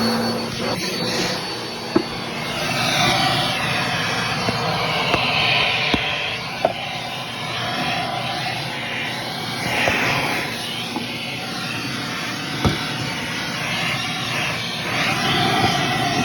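Bissell PowerForce Compact Turbo upright vacuum running with suction through its stretch hose, a steady motor drone with air noise that swells and fades as the hose end moves. A high motor whine settles out in the first few seconds, and a few sharp taps come through.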